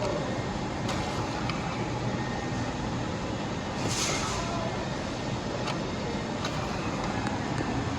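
Cash being fed into a lottery ticket vending machine's bill acceptor over a steady background hum: a few light clicks and one short rushing whirr about four seconds in.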